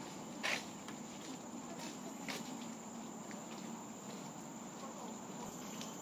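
Insects trilling steadily at one high pitch over a soft, even outdoor hiss. A short, sharp noise, the loudest thing here, comes about half a second in, and a fainter one a little after two seconds.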